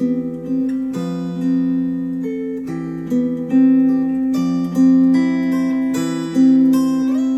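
Acoustic guitar music played back through Focal Chora 806 bookshelf speakers: slow picked notes and chords, a new one about every second, each left ringing.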